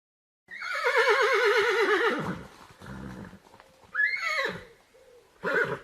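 Horse whinnying: one long, quavering neigh that falls in pitch at the end. A low snort follows, then a shorter neigh and a brief call near the end.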